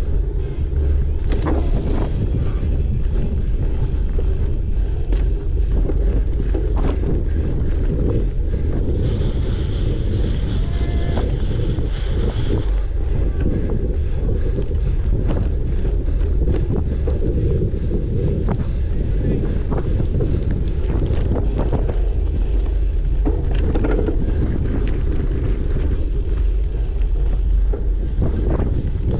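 Steady heavy wind rumble on the microphone of a camera riding on a cyclocross bike at race pace, with scattered clicks and knocks over rough ground.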